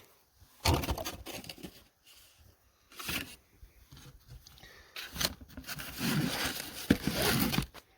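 Intermittent scraping and rustling: several short bursts, then a longer rough stretch with a few sharp clicks near the end.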